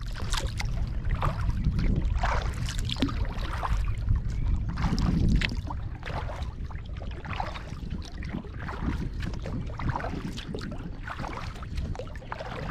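Kayak paddle strokes: the blades dip and water splashes and drips off them, over a low wind rumble on the microphone.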